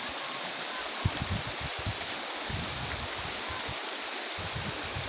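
Rain-swollen muddy water rushing steadily over a stony riverbed, an even, continuous rush. Low rumbling buffets come and go beneath it, about a second in and again near the end.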